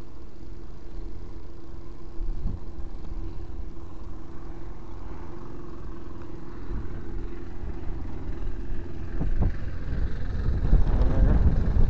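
Wind rumbling on the microphone under a steady low hum, with a couple of short knocks; it grows louder and busier near the end.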